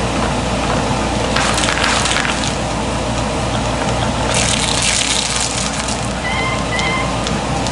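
Shredding machine running with a steady heavy noise, giving two louder bursts as material goes through it, about one and a half and four and a half seconds in.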